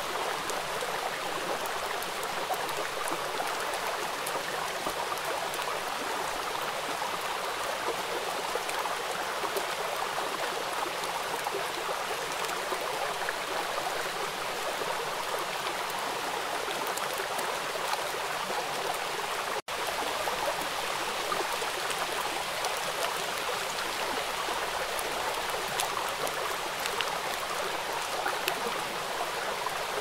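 Steady rushing of a flowing stream, an even wash of water with no rise and fall. It cuts out for an instant about two-thirds of the way through.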